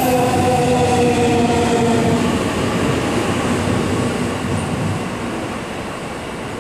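JR Central 315 series electric train pulling out of a station platform and moving away: a whine of several tones that slowly fall in pitch and die out a couple of seconds in, over a rumbling running noise that steadily fades as the train leaves.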